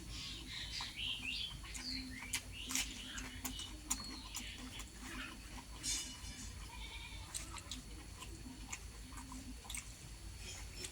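A person chewing and smacking their lips while eating rice and egg curry, giving many short wet clicks and smacks throughout.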